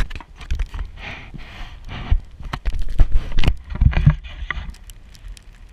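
Camera handling noise: a quick string of taps, knocks and rubbing against the microphone, with heavier low thumps, easing off near the end.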